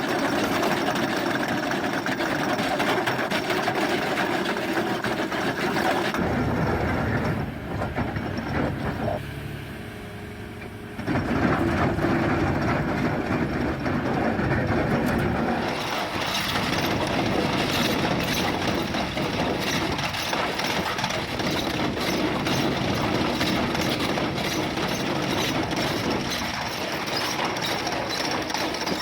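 Excavator-mounted chain cutter running and cutting through rock: a continuous, rattling mechanical clatter over the excavator's engine. The sound changes abruptly a few times and dips briefly in the middle.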